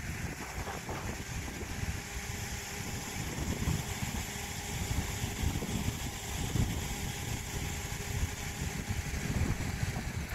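Steady road and engine noise of a moving vehicle, with wind buffeting the microphone in an uneven low rumble and a faint steady hum underneath.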